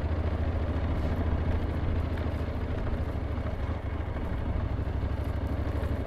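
Honda NC750X DCT motorcycle's parallel-twin engine running steadily while riding on a dirt road, a low even pulse under a steady hiss.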